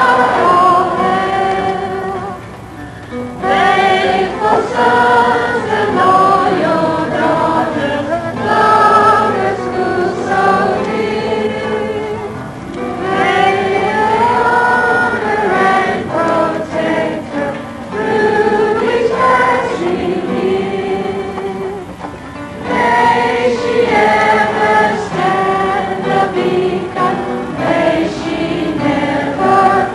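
A crowd of voices singing a school alma mater together, in sung phrases with brief breaks between lines, heard through a worn VHS recording.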